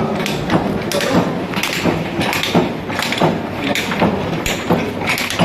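Repeated knocks and thuds at uneven intervals, roughly one or two a second, over a steady low hum.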